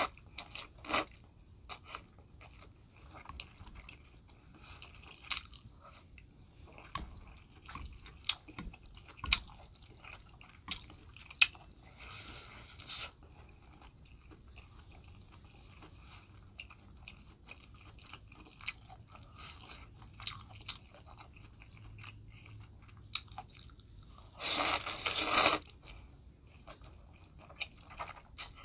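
Close-miked eating of spicy champon noodles in soup: wet chewing and small mouth clicks throughout, with loud slurps of noodles at the start, a lighter one about 12 seconds in and a long one about 25 seconds in.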